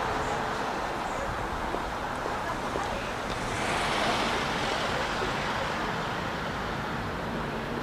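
Street traffic noise, steady throughout, swelling as a vehicle passes about halfway through.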